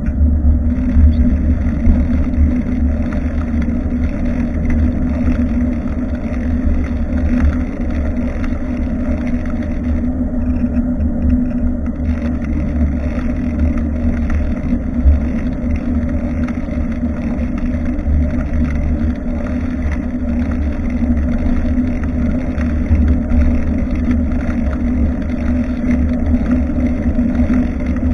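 Wind buffeting the microphone of a rear-facing action camera on a moving bicycle, a steady low rumble with the bike's riding noise underneath.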